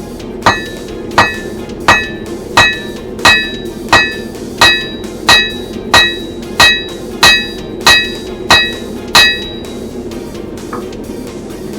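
Blacksmith's hammer striking steel on the anvil while forging an archaeology trowel: about fourteen evenly spaced ringing blows, roughly three every two seconds, the 'tink-tink' of the anvil. The blows stop near the end, followed by one lighter tap.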